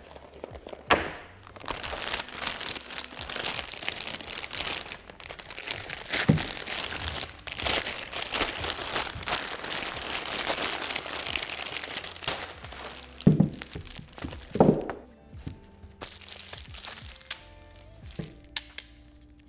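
Packaging being handled and torn open: a long stretch of crackling, crinkling rustle with several sharp knocks, over background music.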